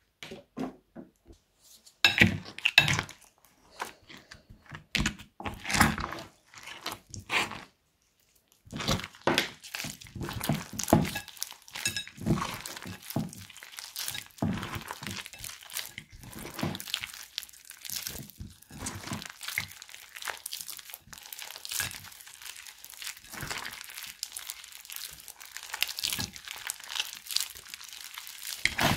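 Hands squeezing and kneading slime mixed with kinetic sand: a run of sticky crackling and crunching squishes, broken by a brief pause about eight seconds in.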